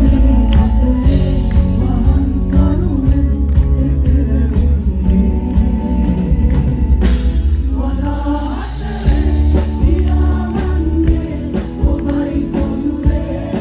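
Live band playing with heavy bass while a group of male and female vocalists sing together into microphones.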